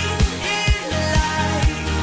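Background pop music with a steady drum beat, about two beats a second.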